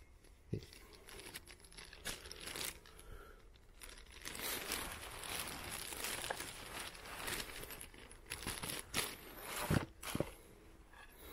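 Paper wrapping crinkling and rustling as it is handled, loudest in the middle stretch, with a couple of sharp light knocks near the end.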